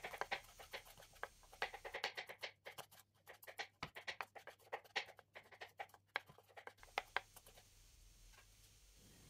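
Kitchen knife chopping onion and garlic on a wooden cutting board: a run of quick, irregular taps that thins out after about seven seconds.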